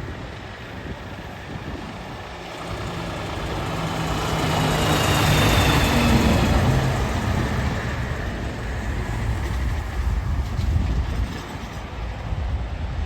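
A heavy truck drives past, its engine and tyre noise swelling to loudest about five or six seconds in and then fading. Its pitch drops as it goes by.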